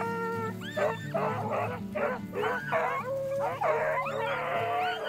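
A pack of beagles baying as they run a rabbit's trail, several voices overlapping in repeated howling calls.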